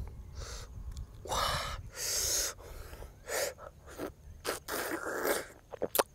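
Someone eating mangosteen: short bursts of wet sucking and slurping at the soft white fruit segments, with a few quick mouth clicks near the end.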